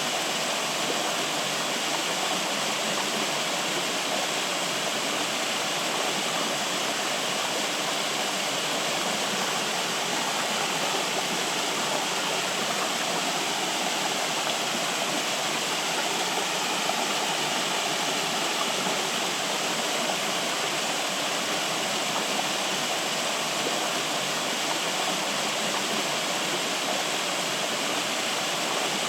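Flowing water rushing steadily, an even, unbroken wash of sound.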